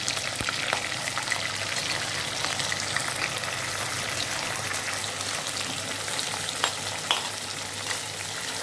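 Goat liver, lung and windpipe pieces frying in hot oil in a pan-type pressure cooker over a high flame: a steady sizzle with a few scattered sharp clicks.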